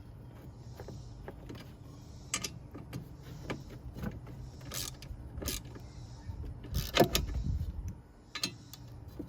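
Scattered, irregular clicks and knocks, the loudest a dull thump about seven seconds in, over a steady low hum.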